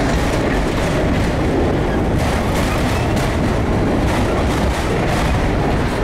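Freight train of enclosed autorack cars rolling past close by: a loud, steady rumble of steel wheels on rail.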